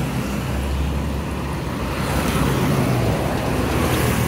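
Road traffic: motorcycles and cars driving past, a steady engine rumble.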